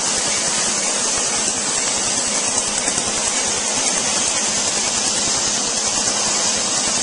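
Steady hiss of air blowing from a hose nozzle aimed at the skin being treated with a tattoo-removal laser.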